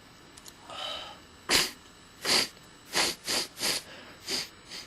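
A man sneezing about six times in quick succession, starting about a second and a half in, with the sneezes coming less than a second apart.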